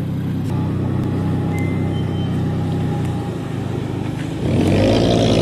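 Car engines running at low revs as they pull away. About four seconds in, a BMW M2's turbocharged straight-six revs up loudly, rising in pitch as it accelerates past.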